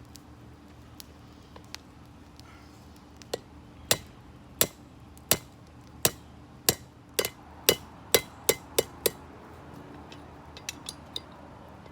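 Hammer blows on metal, about a dozen sharp ringing strikes roughly every half second, flattening a steel ball bearing. They start about three seconds in, stop around nine seconds, and a few lighter taps follow near the end.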